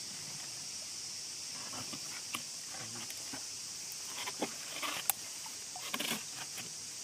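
Short splashes and knocks in the water from about two seconds in, clustered and loudest around the fifth and sixth seconds, as a hooked eel thrashes at the surface. Under them, a steady high insect drone of crickets.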